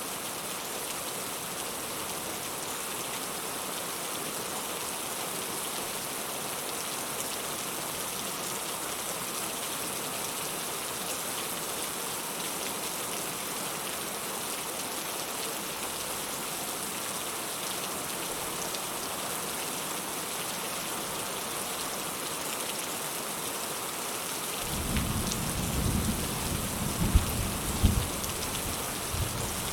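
Steady rain falling on a surface. Near the end, thunder rumbles in low and uneven, with a couple of sharp loud cracks within it before it fades.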